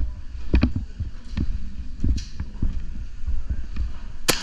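Footsteps and kit movement of a player moving quickly across hard floors: irregular low thumps a few times a second. A single sharp crack comes near the end.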